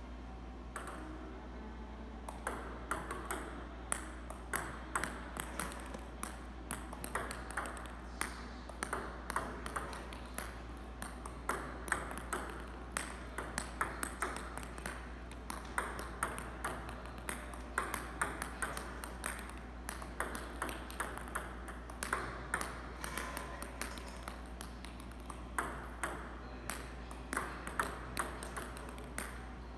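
Table tennis ball and bat clicking over and over as spin serves are practised with a Japanese penhold bat carrying Butterfly Flextra 1.9 rubber: sharp ticks of bat contact and bounces on the table, in quick irregular clusters. A steady low hum runs underneath.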